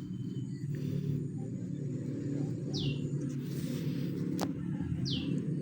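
A steady low rumble, with a bird chirping briefly twice and a single sharp click about four and a half seconds in.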